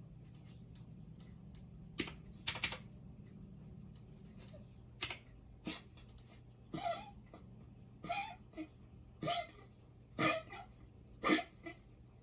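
Scattered sharp clicks of a computer mouse and keyboard. From about seven seconds in, a run of short voice-like sounds comes roughly once a second.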